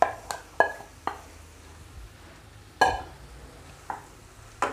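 Cooking utensils knocking against a steel bowl and a non-stick kadai as mashed potato is scraped out of the bowl and broken up in the pan: about seven sharp clinks and knocks, some with a short metallic ring, the loudest a little past the middle.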